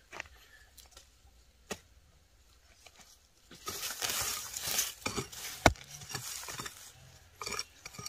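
Scattered clinks and knocks of objects being handled, with a noisy stretch of about a second and a half around the middle and a sharp knock just after it, the loudest of them.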